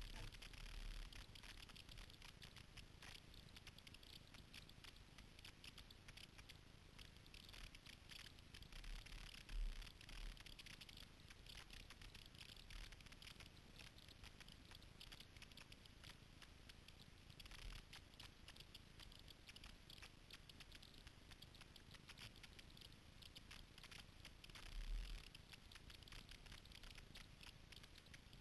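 Faint patter and crackle of water dripping and splashing off kayak paddle strokes, heard through a camera's sealed waterproof housing. A few dull low thumps stand out, the loudest about ten seconds in and near twenty-five seconds.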